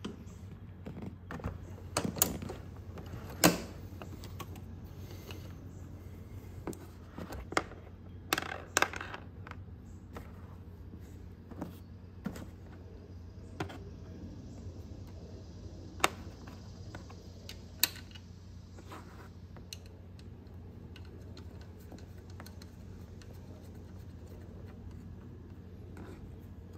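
Scattered clicks, taps and knocks of small parts being handled and fitted back on a Honda Super Cub scooter. They come mostly in the first ten seconds, with a couple more later, over a steady low hum.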